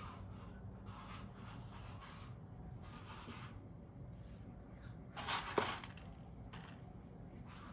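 A cat working a plastic food puzzle feeder with its paws: soft scuffs and rattles, with a louder clatter and sharp clack about five and a half seconds in.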